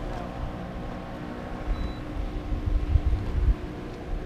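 Wind buffeting the microphone in gusts, heaviest about three seconds in, over a steady hum from the boat.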